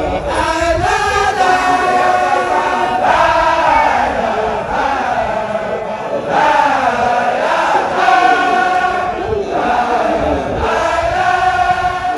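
A large group of Baye Fall men chanting together in unison, a repeated sung phrase of about three seconds, over and over.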